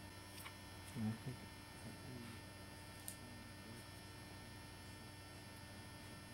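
Steady low electrical hum, like mains hum, with a brief faint voice about a second in and a few faint clicks.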